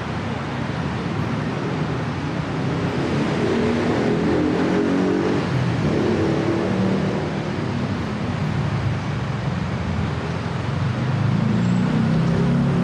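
Busy city street traffic: a steady rumble of car engines and tyres, with engines pulling away and swelling louder about three seconds in and again near the end.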